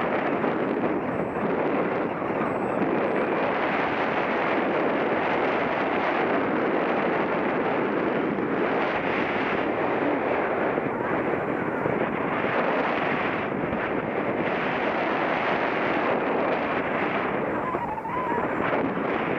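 Wind buffeting the microphone of a camera on a paraglider in flight: a steady rush of airflow noise.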